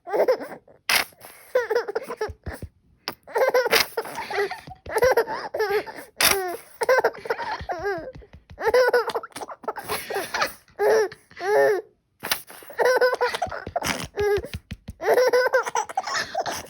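A baby laughing in repeated giggling bouts, set off by the squelching squirts of a lotion bottle being squeezed, which come as short sharp sounds between the laughs.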